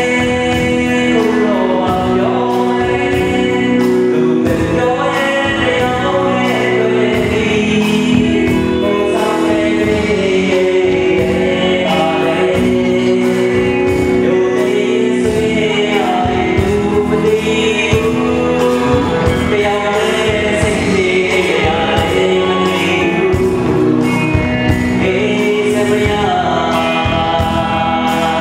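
A song performed live on stage: a man's voice singing into a microphone over instrumental accompaniment with a steady beat.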